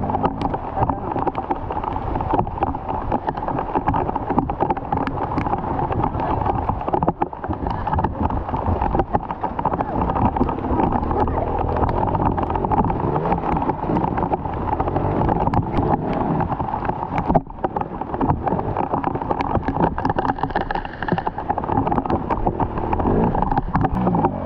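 Off-road trail motorcycle engine running, its note rising and falling unevenly as it is ridden.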